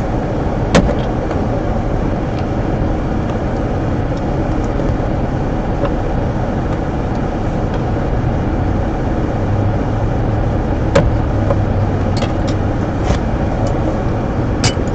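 A steady low hum, with three sharp clicks from the glove compartment door's plastic parts being worked loose: one about a second in, one about two-thirds through, one near the end.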